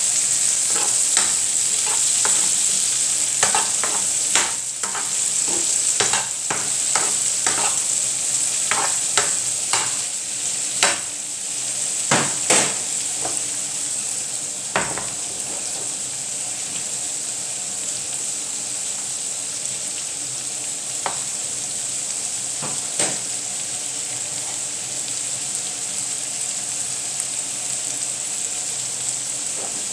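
Egg and vegetables frying in a pan with a steady sizzle. A utensil scrapes and taps the pan many times in the first half, then only twice more later on.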